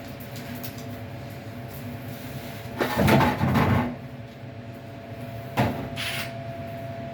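Dryer vent hose and connector fittings being handled: a rustling scrape lasting about a second, about three seconds in, then a sharp knock and a shorter scrape near the end, over a steady low hum.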